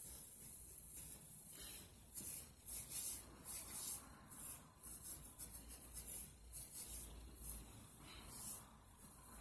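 Hands rubbing and working through wet, curly hair, a quick irregular run of soft brushing strokes.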